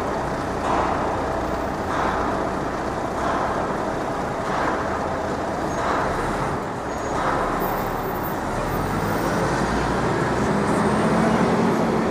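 City street traffic: a steady wash of passing vehicles, with a low engine hum coming in and growing louder about ten seconds in.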